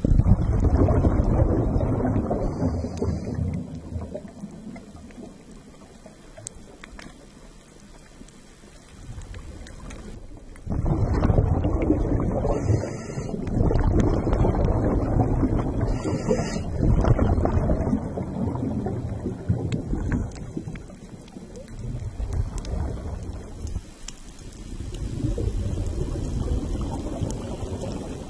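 Underwater rumble and hiss in long surges. It is loud for the first few seconds, eases off, then swells again about eleven seconds in and keeps rising and falling.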